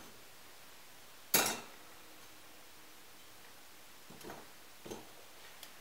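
Blown glass vessels being handled and set down: one sharp, ringing glass clink just over a second in, then a few softer clicks near the end.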